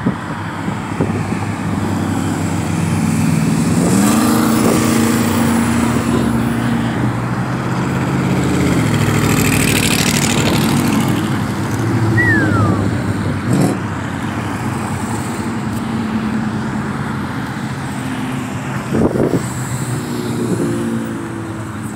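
Engines of classic cars and a hot rod cruising past on the street, their pitch stepping up as they accelerate about four seconds in. A louder pass with a rush of tyre and exhaust noise comes about ten seconds in. A short falling whistle follows just after.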